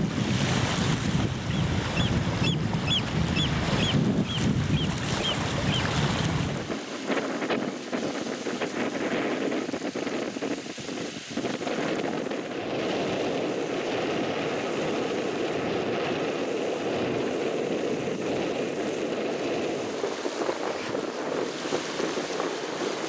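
Wind buffeting the microphone over the wash of small waves on the shore, with a run of short high chirps in the first few seconds. About seven seconds in the wind rumble drops away, leaving a steady wash of water.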